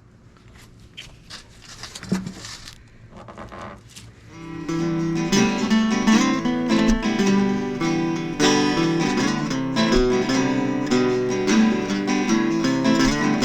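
Acoustic guitar music that comes in strongly about four seconds in and plays steadily from then on. Before it there are only faint scattered clicks and knocks.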